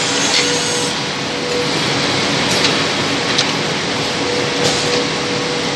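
CNC double-end tenoning machine running, its four cutter heads spinning with a steady hum and a faint steady tone, with a few light clicks.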